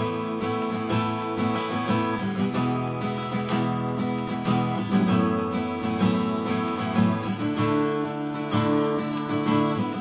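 Taylor GS Mini-e Koa Plus, a small-bodied koa acoustic guitar, strummed in a steady rhythm of full, ringing chords.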